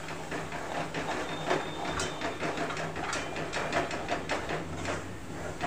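Metal ladle scraping and clinking against a steel kadhai as ground onion, garlic and coconut masala paste is stirred and sautéed, with the paste sizzling in the hot oil. The scrapes and clinks come irregularly, several a second.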